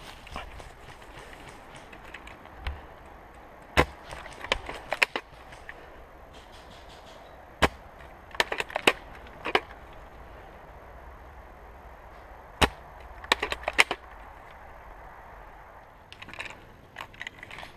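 Airsoft replica gunfire: sharp cracks, some single and some in quick clusters of several shots, spread through the stretch.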